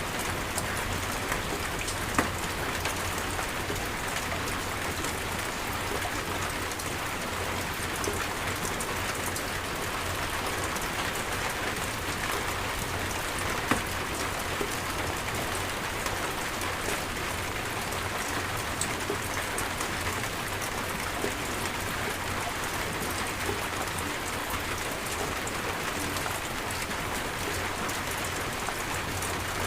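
Steady rain falling in a rainstorm, an even hiss with a few sharper drop hits, one about two seconds in and another near fourteen seconds.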